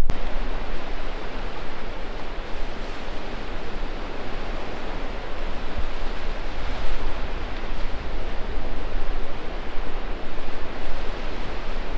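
Steady rushing noise of wind and sea surf.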